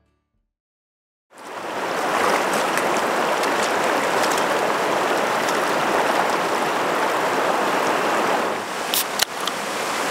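Steady rush of river water close to the microphone, starting abruptly after about a second of silence. A couple of sharp clicks come near the end.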